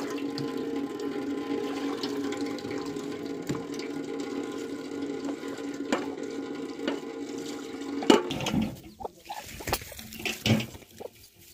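Water running steadily from an outdoor tap and splashing into a pot being washed beneath it, with a steady hum in the stream. About eight seconds in there is a loud knock, then the running water drops away and a few short sharp sounds follow.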